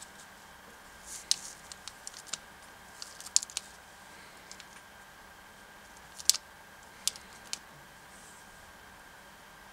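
Small plastic chopsticks clicking and tapping against each other and on a thin plastic candy tray while picking up soft gummy pieces: a string of short, sharp, irregular clicks, bunched in the first four seconds, with one louder tap about six seconds in.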